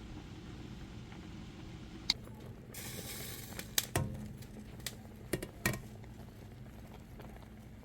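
Kitchen utensils and cookware clinking and knocking while hot grape mash is strained, with a short hiss about three seconds in and a cluster of sharp clinks soon after, over a steady low hum.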